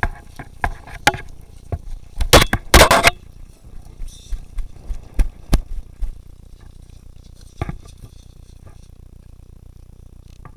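Airsoft guns firing in a skirmish: scattered single shots, a dense rapid burst about two to three seconds in, more shots up to about six seconds, and one last shot near eight seconds.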